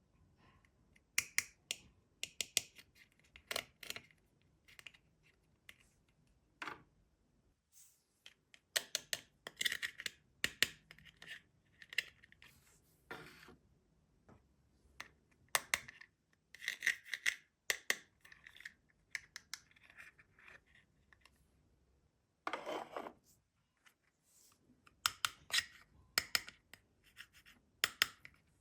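Hands unboxing and handling a plastic toy playset and its packaging: scattered short clicks, taps and scratchy rubs in quick bursts, with brief pauses between.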